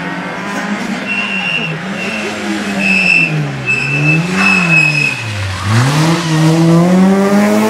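Rally car engine at speed, its revs rising and falling through the gears, dropping low a little after five seconds as the car slides through a bend, then climbing again as it accelerates out. A row of five short, high, steady tones sounds in the first part, about one a second.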